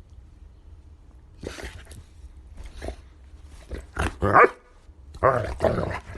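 A dog barking and growling in short bursts, the loudest about four seconds in, over a steady low rumble.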